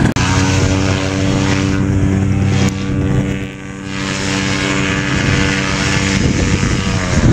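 Paramotor engine and propeller running at a steady pitch, with a brief drop in level about three and a half seconds in. Near the end the pitch sinks a little and the steady tone breaks up.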